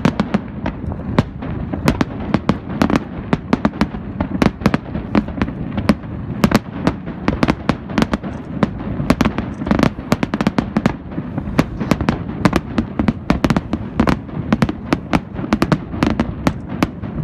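Dense barrage of aerial firework shells bursting: several sharp cracks a second over a continuous low rumble.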